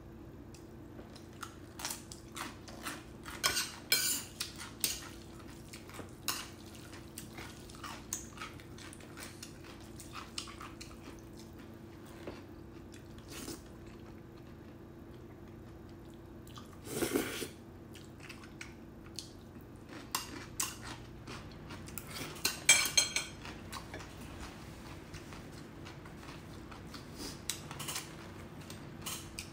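Stainless metal chopsticks clicking and clinking against a ceramic bowl and plates while noodles are picked up and eaten, with wet mouth sounds of slurping and chewing. A short louder slurp-like noise comes just past halfway, and a cluster of sharp clinks about three quarters of the way in, over a faint steady hum.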